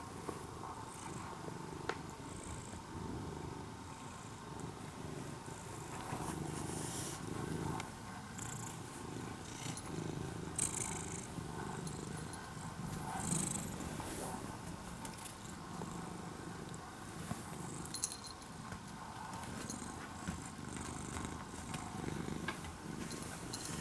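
Domestic cat purring steadily close to the microphone, the purr rising and falling in level, with a few brief rustles of bedding as it shifts.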